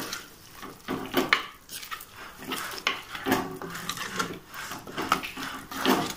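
Steel ladle stirring mango curry and freshly added coconut paste in a clay pot, scraping and knocking against the pot in quick, irregular strokes.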